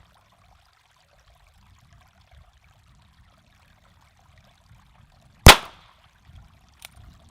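A single shot from a Ruger Single Six .22-calibre single-action revolver, sharp and sudden about five and a half seconds in, with a short echo after it.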